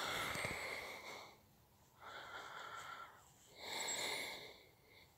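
A person breathing audibly close to the microphone: three breaths, each about a second long.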